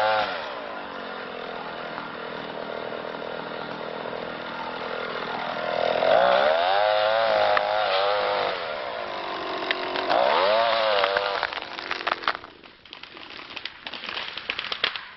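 Two-stroke chainsaw cutting through the trunk of a tall larch, its pitch sagging and climbing again twice. The saw stops about twelve seconds in, and a run of sharp cracks and snaps follows as the tree breaks off and falls.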